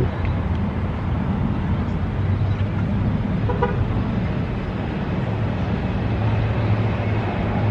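Steady vehicle and traffic noise in an open parking lot, with a constant low engine-like hum and a brief faint tone about three and a half seconds in.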